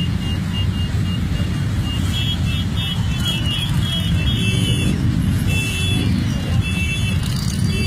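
Crowd of motorcycles running together in a steady low rumble, with many short, high beeps sounding over it from about two seconds in.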